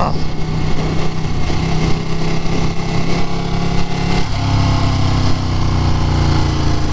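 Motorcycle engine running under way, with wind rushing past; the engine note changes about four seconds in.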